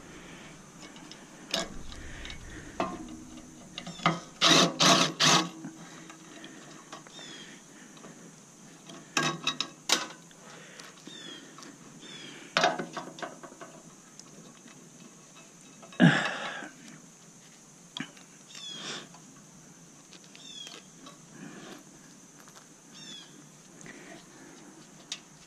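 Irregular metallic knocks, clinks and clatters from hand tools and parts being worked loose while dismantling a stainless steel bread steamer, with a quick run of strikes about four to five seconds in and one loud knock about sixteen seconds in. Faint short high chirps sound now and then.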